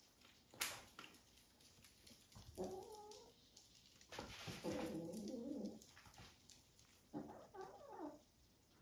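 Three short, warbling cries from pets at play, a second or two apart, with a sharp knock about half a second in.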